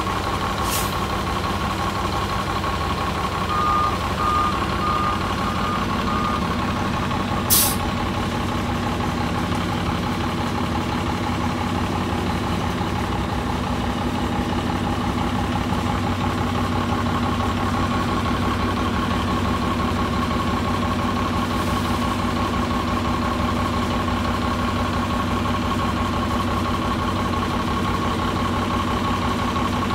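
City transit bus engine idling steadily with a high whine, interrupted twice by short, sharp hisses of air, about a second in and again at about seven and a half seconds. Between about three and a half and six seconds, about six short electronic beeps sound.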